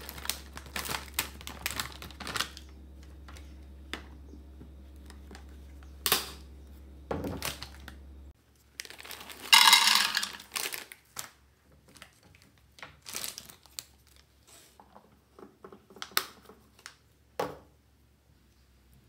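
Dry pet kibble rattling as it is poured into a clear plastic container, then, about halfway through, a plastic treat bag crinkling loudly as ring-shaped treats clatter into a small plastic box, followed by scattered clicks of pieces settling.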